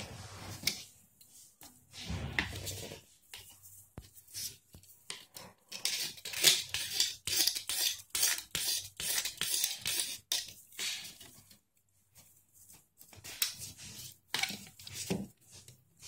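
A knife blade scraping and shaving the plastic frame of a cabin air filter in many quick, sharp strokes. The strokes are thickest through the middle, stop for a moment, then come back as a few more strokes near the end.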